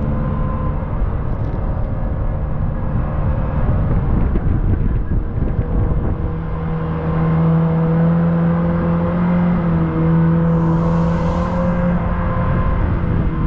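Jet car's engine running steadily under way on the water: a constant engine drone that grows stronger and steadier about halfway through.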